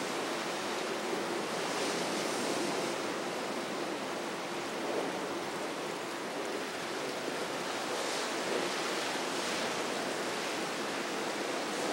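Wind and choppy sea: a steady rushing noise, with brief surges of breaking waves about two seconds in and again near the end.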